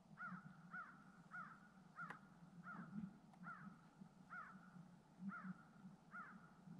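A bird calling in the distance: a faint, even series of about nine short calls, roughly one and a half a second.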